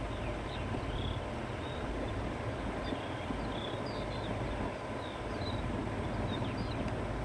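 Wind blowing across open countryside: a steady rushing with a low rumble, while small birds chirp faintly and repeatedly.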